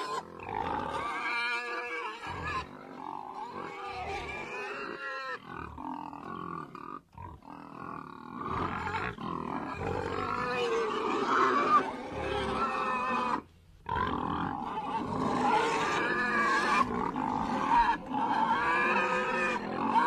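Domestic pigs grunting and squealing, one call after another, with a brief break about 13 seconds in.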